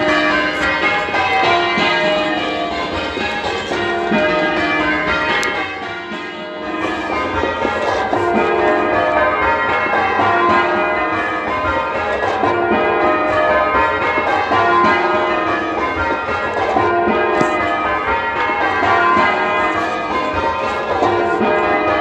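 Change ringing on a ring of ten church bells (tenor 19 cwt in E flat), a continuous run of overlapping bell strokes heard from the ringing room below the bells. The clapper knock of the back bells comes through prominently, and the sound is slightly muffled.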